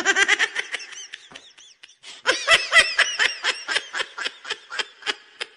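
A person laughing in quick, repeated bursts, in two bouts. The second bout starts about two seconds in and fades away near the end.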